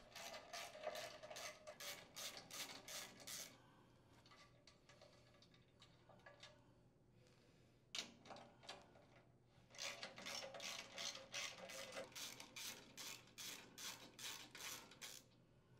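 Faint ratchet wrench clicking in quick runs of about four clicks a second while unthreading engine mounting bolts. There is a short run, a pause of a few seconds broken by one sharp click, then longer runs.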